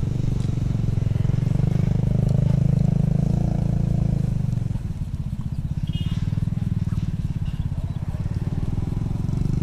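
A small engine running steadily, growing louder about two seconds in and easing back a little around five seconds.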